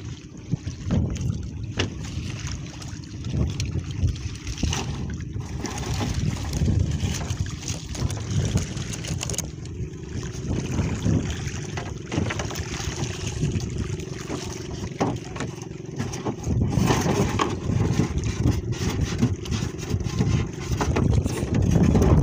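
Wind buffeting the microphone, with water slapping against a small wooden outrigger boat, in uneven gusts. A faint steady hum runs underneath, with a few light knocks.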